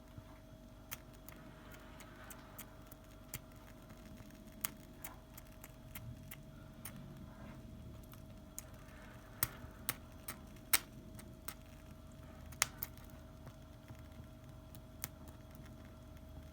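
Irregular sharp clicks and small taps, a dozen or more scattered unevenly, the loudest in the second half, over a faint steady hum.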